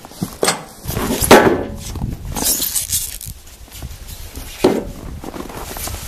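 Footsteps in snow and plastic packing wrap rustling as a sawmill part is handled, with a few sudden knocks, the loudest about a second in.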